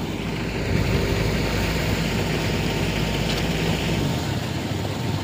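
Vehicle engines running steadily, with a deep rumble that drops away about four seconds in.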